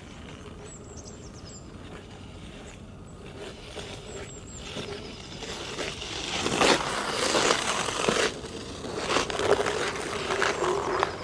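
Steel ice-skate blades cutting and scraping over hard natural black ice in long swishing strokes. The strokes are faint at first and grow much louder from about halfway as the skater comes close.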